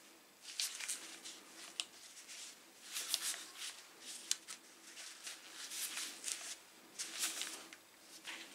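Gloved hands rubbing and gripping the plastic housing of a Bosch GWS 7-115 angle grinder as it is turned over, in irregular soft scuffs and rustles, with one sharp click about four seconds in.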